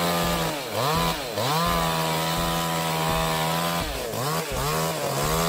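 Chainsaw engine running at high revs, its pitch dropping and climbing back up about four times as the throttle is eased and reopened or the chain loads in the cut.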